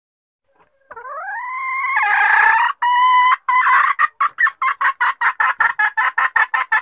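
Junglefowl hen calling: a long pitched note that rises and swells, then a quickening run of short clucks that stops abruptly.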